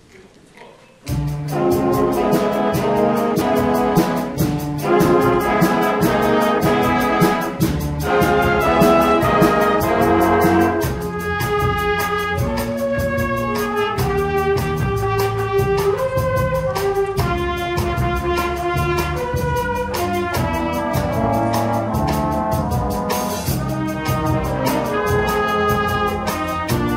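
High school jazz band playing: saxophones, trumpets and trombones over a steady drum beat, coming in abruptly about a second in.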